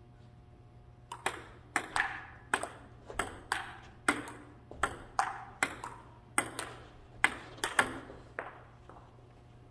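Table tennis rally: the celluloid-type ball clicking on the table and off the paddles in a quick back-and-forth, about two to three hits a second, starting about a second in and ending about a second before the end.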